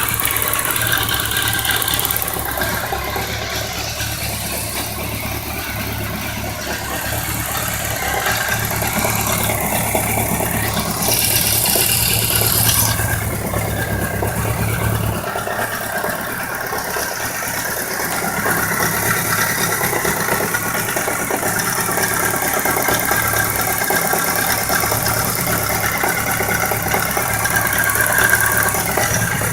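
1999 BMW K1200RS inline-four engine idling steadily, with the knock and ticking noise its owner is recording to diagnose. The deepest bass drops away about halfway through.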